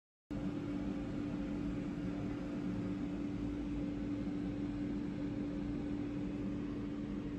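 Steady machine hum with a constant low tone over a hiss, starting suddenly just after the start and running evenly without change.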